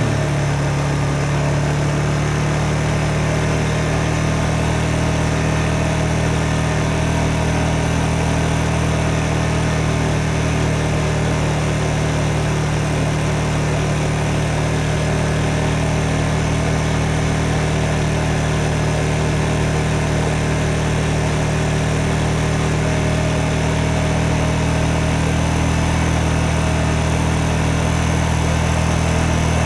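Motorcycle engine idling steadily: a constant low running note that holds one pitch, with no revving.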